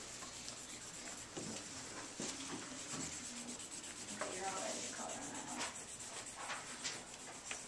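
Low classroom background noise: steady rubbing and rustling with small ticks, from papers and handling, with a faint voice briefly about halfway through.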